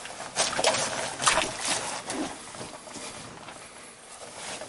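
Footsteps on a muddy, root-covered forest trail, heard from under a canoe carried overhead on a portage: a run of crunching steps in the first two seconds, then quieter.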